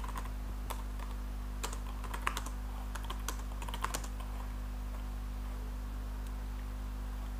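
Typing on a computer keyboard: a run of irregular keystrokes that stops about four seconds in, leaving a steady low electrical hum.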